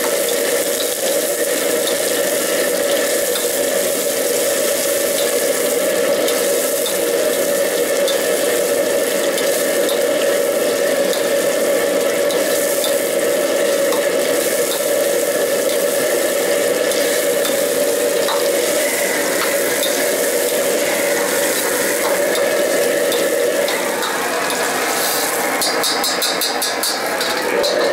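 A commercial wok stove keeps up a steady hum while a metal ladle scrapes and clicks against the wok as vegetables are stir-fried. Near the end the wok is tossed, with a quick run of metallic clicks.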